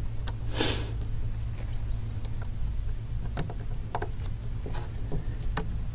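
Faint clicks and ticks of a small precision screwdriver driving a tiny screw into an iPhone 5's metal frame, over a steady low hum. A short hiss comes about half a second in.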